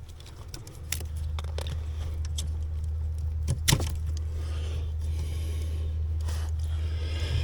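Plastic clicks and light scraping from working a brake-pedal stop light switch and its connector under a dashboard, with one sharp click about halfway through, over a steady low rumble.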